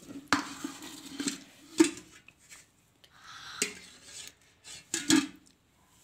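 Steel cooking vessel and steel plate clanking together as the vessel is turned upside down onto the plate: about half a dozen sharp metal knocks, each with a short ring.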